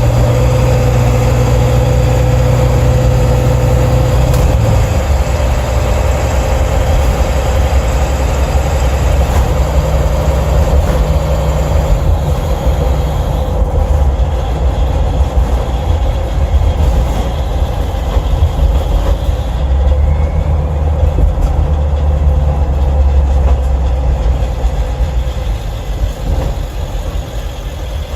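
7.3 L Powerstroke V8 turbo-diesel running while the van is driven, heard close to the engine cover inside the cab, its pitch changing a few times with speed. A loose metallic noise comes and goes under the engine sound and goes away under acceleration; its cause is unknown.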